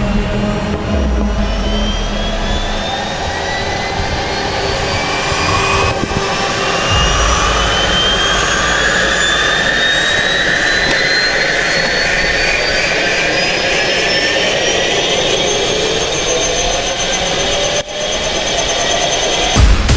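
Agusta helicopter's turbine engine spooling up on the ground, heard from the cockpit: a whine rising steadily in pitch for about fifteen seconds, then holding steady. A few sharp bangs come right at the end.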